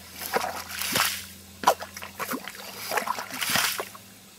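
Nipper (yabby) pump being plunged into wet tidal mud and emptied: several wet sucking and splashing bursts as mud and water are drawn up and spurt back out.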